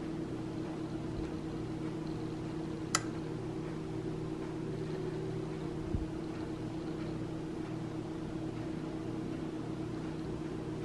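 Steady low hum of a running kitchen appliance, with one sharp click about three seconds in and a soft knock about six seconds in.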